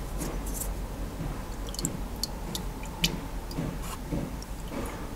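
Thin stream of used transmission fluid from a 6F35 automatic gearbox's drain hole trickling into a plastic canister, with irregular small ticks and drips; the drain is nearly run out.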